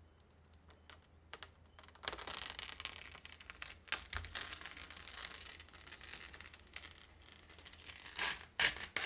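Handling noise from hard parts being worked by hand: a run of sharp clicks and taps over a rustling, scraping sound, with the loudest clicks near the end.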